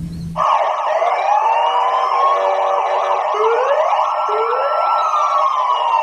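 Several police sirens wailing together, starting about half a second in, their overlapping tones rising and falling at different rates.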